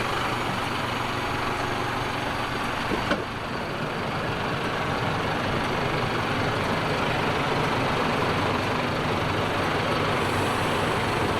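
Heavy off-road truck's engine running steadily, with an abrupt change in the sound about three seconds in.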